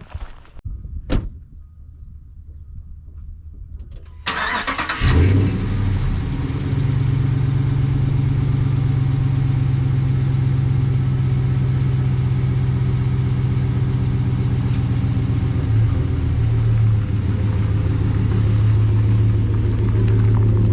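A car engine starting about five seconds in, after a sharp knock near the start, then running steadily.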